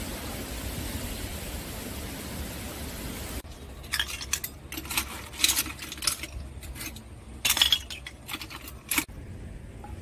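A steady rushing outdoor noise for the first few seconds, then a run of sharp clinks and clatters: a metal spoon knocking and scraping against boiled snail shells and a ceramic plate as the snails are scooped out of a clay pot.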